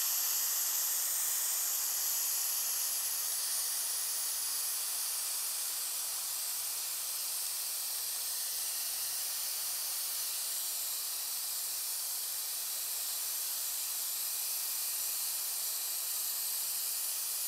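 Compressed air hissing steadily out of a Taipan Veteran 2 PCP air rifle's air tube through its slightly loosened degassing screw: the pressurised tube is being emptied.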